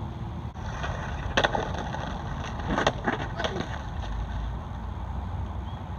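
Skateboard wheels rolling over rough concrete, with sharp clacks of the board about one and a half seconds in and again around three seconds in.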